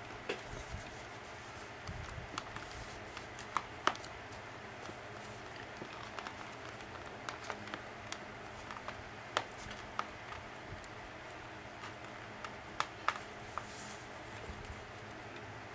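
Hands handling cardstock and paper journal pages: light rustling with scattered sharp taps and clicks as the pages and a pocket are fitted and adjusted, over a faint steady hum.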